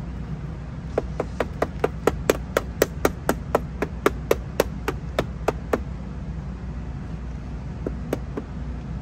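Quick knocks of a hand on a plastic carbon-fibre-look mirror cap on a BMW X5's side mirror, about twenty sharp taps at roughly four a second, then three softer ones near the end: the cap being tapped to make sure its clips are fully seated and tight.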